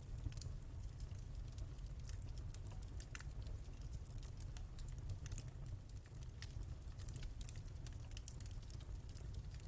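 Wood fire in a fireplace crackling: many quick, irregular sharp pops and snaps over a steady low rumble.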